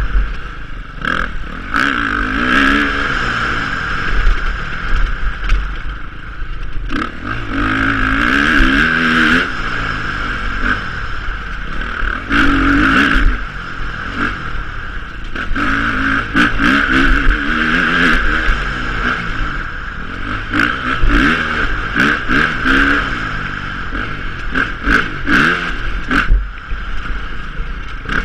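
Single-cylinder four-stroke engine of a 2015 KTM 350 XCF-W dirt bike being ridden hard, its revs rising and falling again and again, with scattered knocks and clatter from the bike over rough ground.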